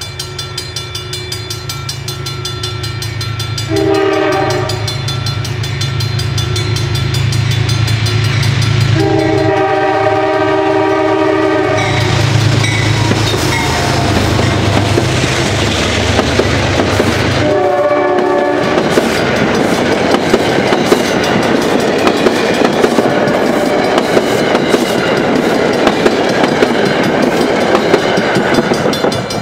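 Metro-North P32AC-DM diesel locomotive No. 228 approaching with its engine rumbling and sounding its horn: a short blast about four seconds in, a long one around ten seconds, another short one around eighteen seconds. Grade-crossing bells ring throughout. From about eighteen seconds the passenger coaches rush past, their wheels clattering over the rail joints.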